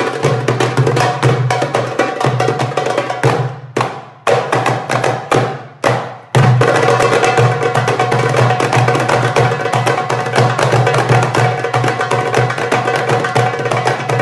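Four goblet drums (darbukas) played together by hand in a fast, dense rhythm. About three and a half seconds in the playing breaks into a few separate unison strikes with short silences between, then the full rhythm comes back in about six seconds in.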